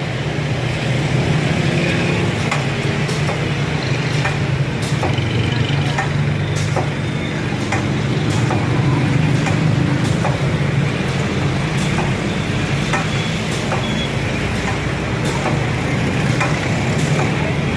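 CuTex TBC 55LHX angled webbing-strap cutting machine running with a steady low hum, with sharp clicks repeating at irregular intervals, roughly once a second.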